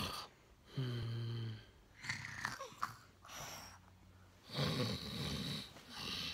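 A man pretending to snore: two long snores, the first a steady buzzing drone about a second in, the second rougher and noisier near the end.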